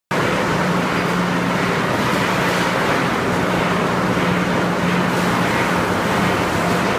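Steady machine din of a food weighing-and-packing line running: conveyors and a multihead weigher, with a constant low hum under an even wash of noise.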